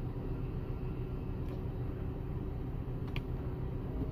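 Steady low cabin hum of a Toyota Avanza Veloz idling with the air conditioning running, with a few faint clicks while the electric side mirror is being moved.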